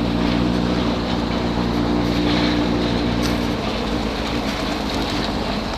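Honda CB1000's inline-four engine with a loud four-into-one exhaust, running steadily under way for about three and a half seconds, then easing off.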